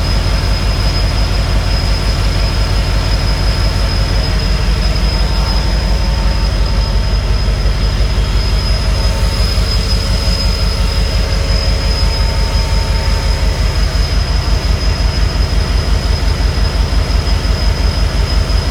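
EMD SD70M locomotive's 16-cylinder 710 two-stroke diesel running after startup: a deep, even exhaust beat with a steady high turbocharger whine above it. The beat becomes more marked in the last few seconds.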